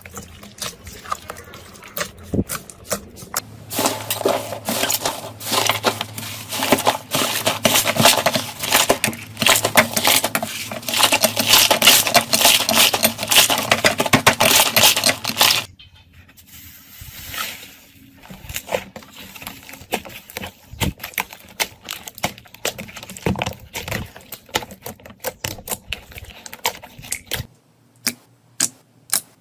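Slime being squeezed and worked by hand: a run of sticky clicks, crackles and small pops. They are dense and loud for about twelve seconds, then stop abruptly and give way to sparser, quieter clicks.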